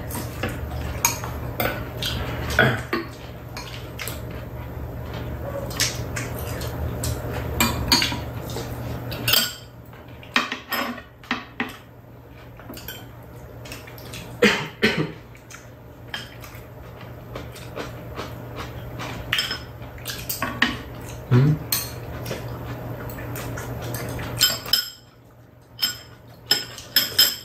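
Steel chopsticks and spoons clinking against stainless and ceramic bowls while eating, in scattered irregular clicks. A low steady hum runs underneath and stops suddenly about nine seconds in.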